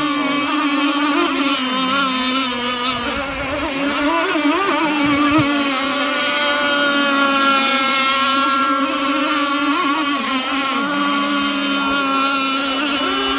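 Radio-controlled model powerboats' small engines running at high revs, several engine notes at once that waver up and down in pitch as the boats race.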